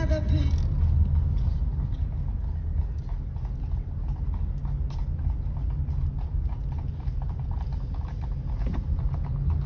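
Horse's hooves clip-clopping on a tarmac road, heard from inside a car following slowly, with the car's steady low rumble underneath.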